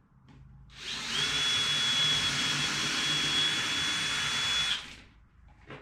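Power drill running steadily for about four seconds, with a constant high whine, while drilling or driving a screw into the wooden bird-feeder roof; it starts about a second in and stops near the end.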